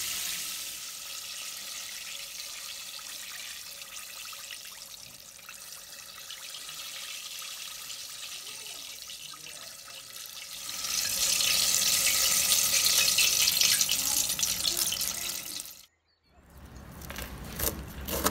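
Hot oil sizzling steadily as coated chicken pieces deep-fry, growing louder about eleven seconds in. It cuts off abruptly near the end, followed by a few sharp clicks.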